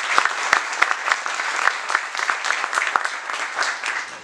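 Audience applauding with many hands clapping, thinning out and fading near the end.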